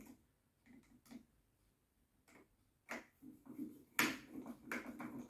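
Sparse light clicks and taps of hard plastic parts being fitted together by hand as a pressure washer's accessory basket is slid onto its brackets, the sharpest click about four seconds in.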